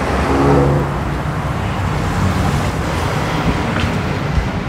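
Street traffic noise: a steady rumble of passing vehicles, with a brief pitched hum in the first second.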